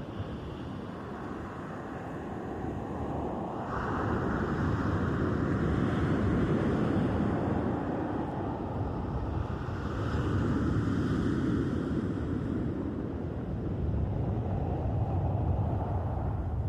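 Sea surf washing onto the shore, with wind on the microphone. It is a steady rushing noise that grows louder about four seconds in, then swells and eases as waves come in.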